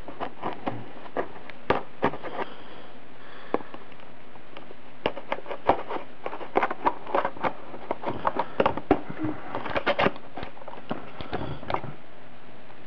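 Fingernail picking at and peeling a tape seal off a cardboard hard-drive box: irregular sharp crackles and clicks, busiest in the middle stretch, over a steady hiss.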